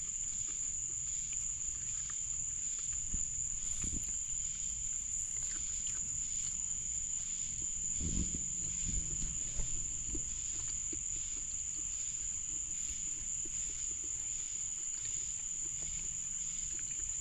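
Night insects chorusing: one continuous high-pitched trill, with a fainter pulsing chirp repeating about twice a second beneath it. Low rustles and knocks come and go, the clearest about eight seconds in.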